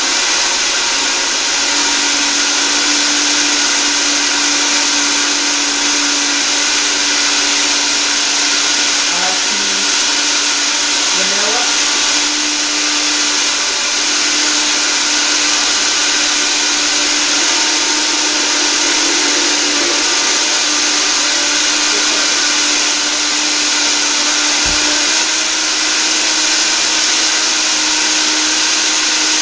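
A 1200-watt Montel Williams HealthMaster Elite blender runs loud and steady, blending almonds, ice and water into almond milk. Its motor hum steps up slightly in pitch about 25 seconds in as the speed is raised.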